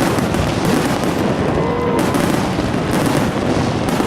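Fireworks going off in quick succession: a near-continuous barrage of booms and crackling, with sharper reports every second or two.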